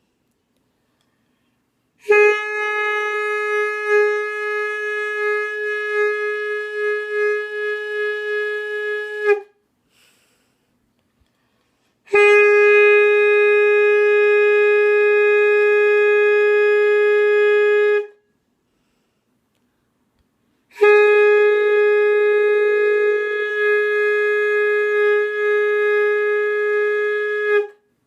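Three long held notes on a wind instrument, each lasting six to seven seconds with short silences between, all at one steady pitch. They are attempts to sound a G sharp.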